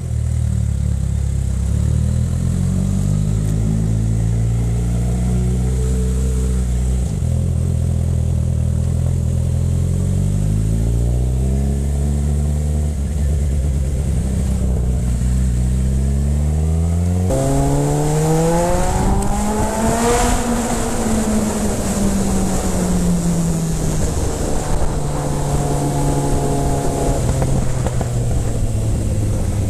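Sport motorcycle engine pulling away and accelerating through the gears: the engine note climbs, then drops sharply at each upshift, about 7 seconds in and again about 17 seconds in. After the second shift, wind rushes loudly over the microphone, and the engine note rises and then falls as the bike eases off.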